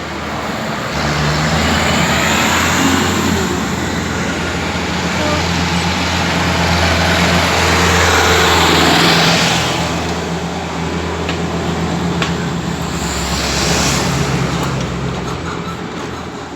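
Road traffic passing close by: a low engine drone under tyre noise that swells as vehicles go past, loudest about eight to nine seconds in.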